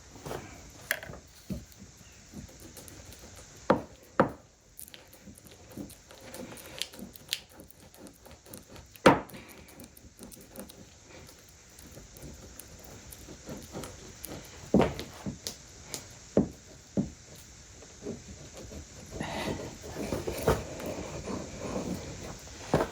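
Scattered sharp knocks and taps of wood and hand tools on a workbench, with a stretch of rubbing near the end.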